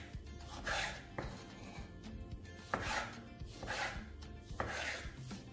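Kitchen knife dicing tomato on a wooden cutting board: a series of cutting strokes at irregular spacing.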